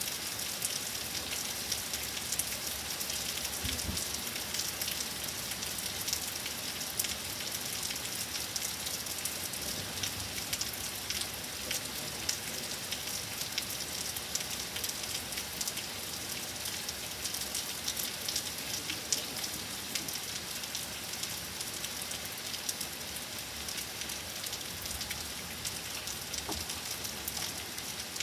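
Steady rain falling during a severe thunderstorm: a continuous hiss dotted with many small drop hits.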